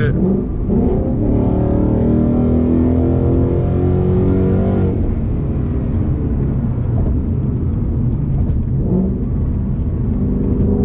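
2019 Ford Mustang GT's 5.0-litre V8 through a Corsa Xtreme active catback exhaust, accelerating hard. The engine note climbs steadily for about four seconds, then drops sharply and settles into a steadier, lower drone.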